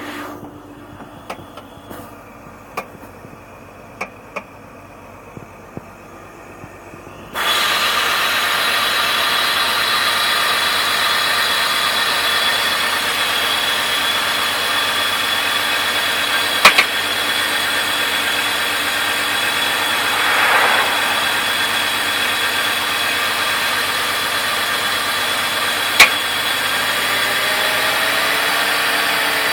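BMW E46 328's engine starting cold after several faint clicks about seven seconds in, then running steadily with a high, even whine over it. This is the noise the owner hears from the engine on a cold start.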